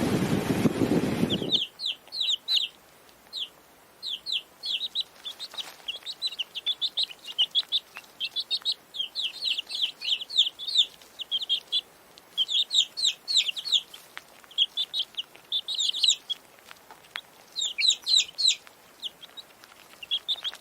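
High-pitched chirping calls in quick runs of several short, downward-sweeping notes, with brief pauses between the runs. They follow a steady rushing noise that cuts off sharply about a second and a half in.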